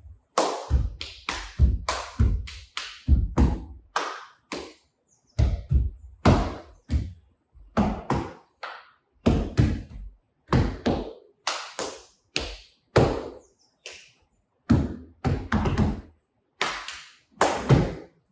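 Body percussion: bare feet stomping and hands slapping on a yoga mat over a wooden floor, a steady rhythm of dull thuds about two a second, some in quick pairs.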